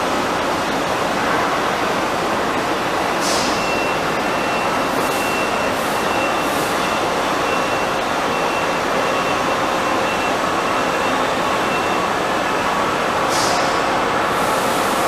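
Daewoo DMV 3016 CNC vertical machining center running: a steady machine noise with a faint high whine that comes and goes, and two brief high hisses, one about three seconds in and one near the end.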